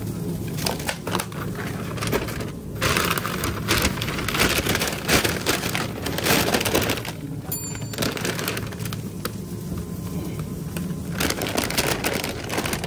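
Brown kraft paper takeaway bag crinkling and rustling in gloved hands as its top is folded over, in several spells of handling with short pauses between them.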